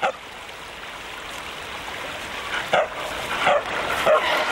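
A dog barking a few times in short, sharp barks: one at the start, then several in quick succession in the second half, over a steady hiss.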